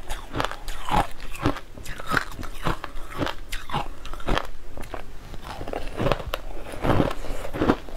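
Colored crushed ice being bitten and chewed, a quick run of sharp crunches about three a second.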